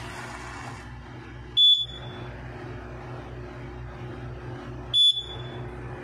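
Fire alarm system giving short, high-pitched beeps, two of them about three seconds apart, over a steady low hum. The beeping is put down to the system having no battery installed.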